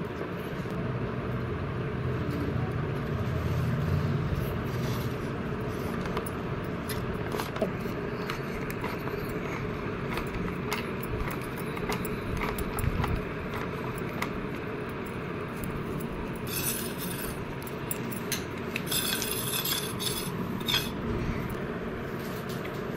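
Scattered light clinks and scrapes of a spoon on a steel plate over a steady background hum.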